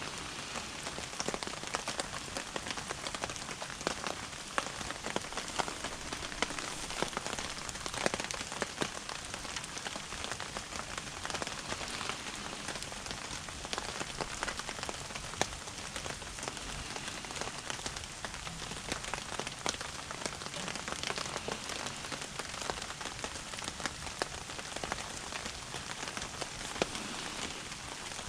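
Steady rain pattering on a surface: a dense, even run of small drop ticks over a continuous hiss.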